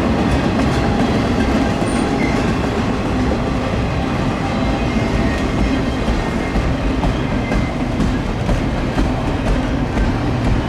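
A freight train's cars rolling past, steel wheels on rail making a steady loud rumble with scattered clicks.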